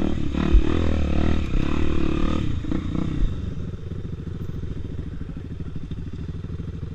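Enduro motorcycle engine revving, its pitch rising and falling, then about three seconds in dropping back to a quieter, steady run.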